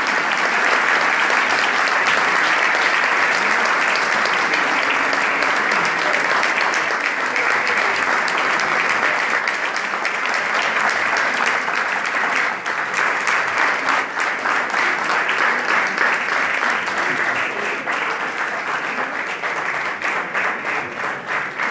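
Audience applauding: a dense, steady clapping that about halfway through thins into separately audible claps and fades near the end.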